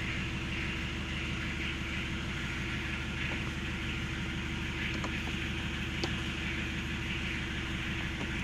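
Steady hum and hiss inside a car: the engine idling with the air-conditioning fan blowing. A couple of faint clicks about five and six seconds in.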